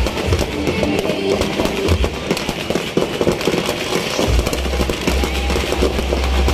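Firecrackers crackling and popping in rapid, irregular cracks as a Ravana effigy burns, over loud music with heavy bass.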